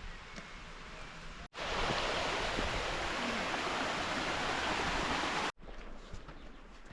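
Rushing water of a mountain stream: a steady hiss that cuts in about a second and a half in and stops abruptly four seconds later. Before and after it there is faint outdoor background.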